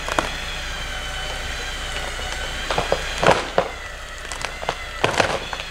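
Smittybilt X2O 12,000 lb electric winch whining steadily under load as it drags a large fallen tree. Branches crack and snap in two clusters, about three seconds in and again about five seconds in.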